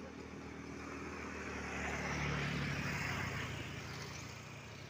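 A motor vehicle passing close by: its engine and tyre noise grow louder to a peak about two to three seconds in, then fade away.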